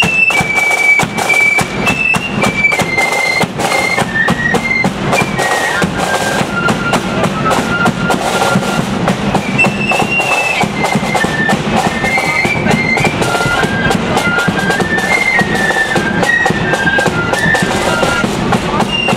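Marching flute band playing a tune, the flutes sounding a high melody together over steady snare and bass drumming.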